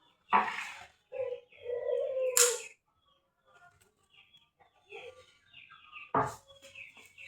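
Metal parts of a scroll saw being handled during disassembly: sharp knocks and clinks, three of them louder, with brief ringing between.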